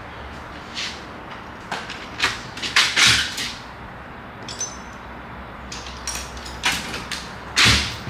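Scattered knocks, clinks and short scrapes of hand tools being handled, the loudest a few seconds in and again near the end, over a low steady hum.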